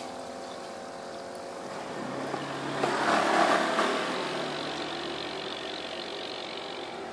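Air bubbling into water in a plastic tub from an aerator tube, over a steady hum. The bubbling swells and is loudest about three to four seconds in, then eases.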